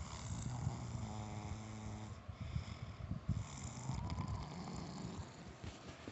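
Snoring: a long, steady, droning snore over the first two seconds, then softer, uneven snoring breaths.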